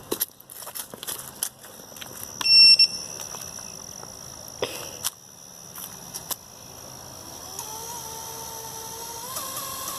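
A short, high electronic beep about two and a half seconds in. From about halfway a faint whine builds, rising slowly in pitch and growing louder: the small brushless motors of a 3-inch FPV quadcopter spinning up.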